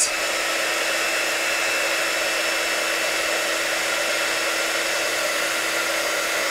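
Handheld craft heat gun (embossing heat tool) running steadily: an even blowing hiss over a constant motor hum, as it heat-dries mirror spray paint on a button.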